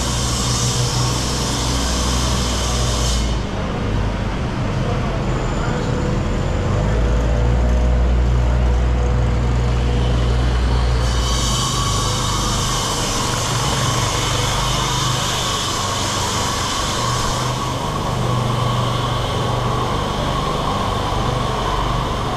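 Busy pedestrian street ambience: a general noise of people and the city over a steady low mechanical hum. A higher hiss drops away about three seconds in and comes back after about eleven seconds.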